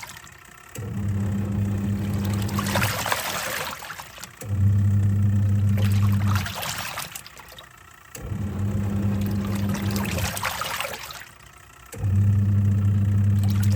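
Twin-tub washing machine on its wash cycle. The motor hums in bursts of about two seconds, about every four seconds, as the pulsator turns one way and then the other, and water swishes in the tub between the bursts.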